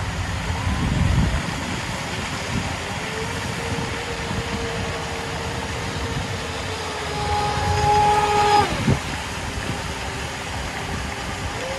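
RC boat's 3.1 kW brushless motor whining at speed: a steady tone that climbs higher and louder around eight seconds in, then drops sharply in pitch just before nine seconds, with a second whine rising near the end. Underneath runs a steady background hiss with a gust of wind rumble about a second in.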